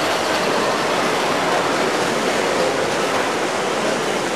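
Live steam model train running past close by: a steady, even rushing hiss.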